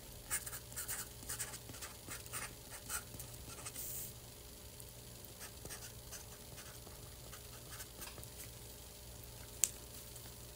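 Felt-tip marker pen scratching across a cardboard box as someone writes, in quick short strokes that come thick for the first few seconds and then more sparsely. One sharp click comes near the end.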